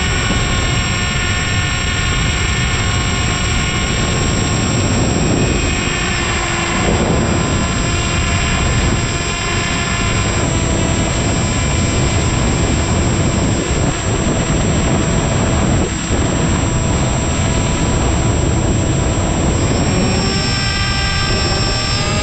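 Electric motor and pusher propeller of an AeroScout RC plane whining steadily in flight, heard from the onboard camera with a strong rush of air noise underneath. The pitch shifts a little now and then, then dips and climbs again near the end as the throttle changes.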